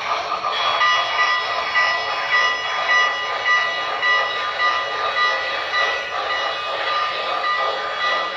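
Model train tank cars rolling along the track with a steady high whine and a rhythmic pulsing about twice a second.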